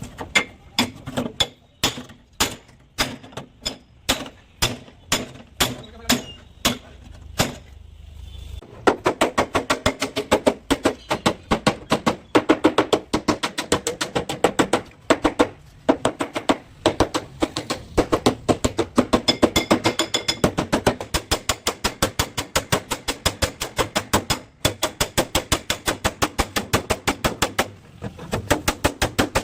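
A hammer beating a car's steel body panel: steady blows about twice a second, then after about eight seconds a fast run of quick, ringing strikes.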